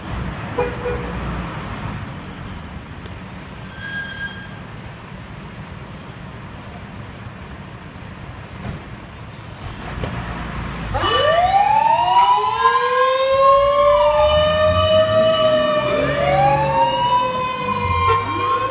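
Road traffic rumble, then about eleven seconds in loud fire engine sirens start up, several wailing tones rising and falling and overlapping one another. They come from the trucks' 100 W electronic siren.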